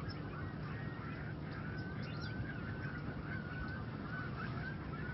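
Birds calling: a wavering call that runs on for several seconds, with a few short higher chirps about two seconds in, over a steady low background rumble.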